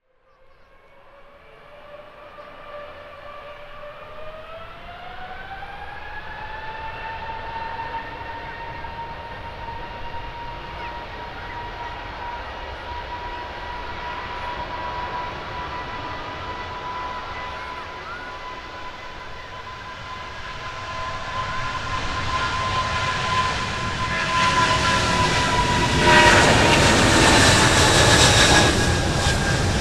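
Boeing 777-200ER jet engines spooling up for takeoff: a whine that fades in, rises in pitch about four seconds in and then holds steady. It grows much louder as the airliner accelerates down the runway, and near the end a roar of jet noise peaks as it passes close by, with the whine dropping a little in pitch.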